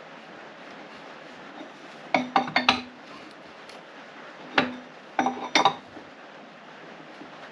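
Sharp metallic clinks of hand tools against engine parts as the engine is turned over by hand to check the cam timing. There is a quick run of clinks about two seconds in, a single one near the middle, and another run just after five seconds, over a faint steady hiss.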